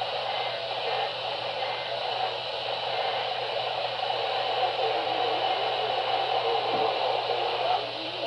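Steady radio static and hiss from a weakly received station, with faint indistinct audio wavering underneath.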